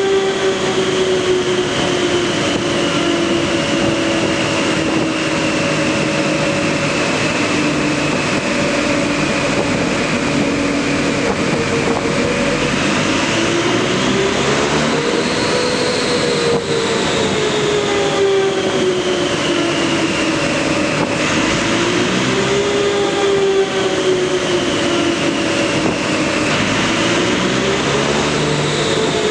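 Toyota 2JZ straight-six engine running under load on a dynamometer. Its pitch slides slowly down, then rises and falls again three times.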